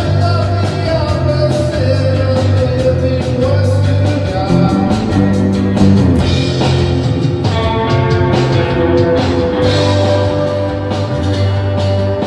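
Three-piece rock band playing live: drums and bass guitar keeping a steady pulse under echoing, reverb-soaked electric guitar.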